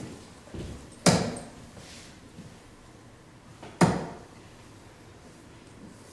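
Two darts striking a Winmau Blade bristle dartboard, each a sharp thud, about a second in and again nearly three seconds later.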